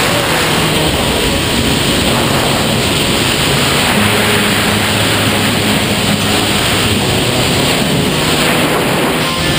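Loud, steady wind rush buffeting the camera microphone during a tandem skydive freefall.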